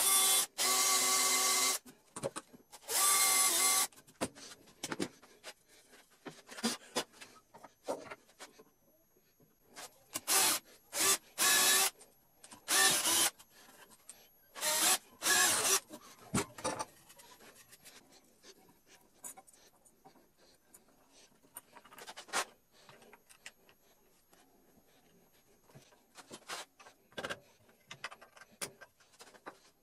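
Power drill whining as it bores into a strip of wood in short runs: two longer ones near the start and four shorter ones in quick succession about ten seconds later. Light clicks and knocks of the wood and parts being handled follow.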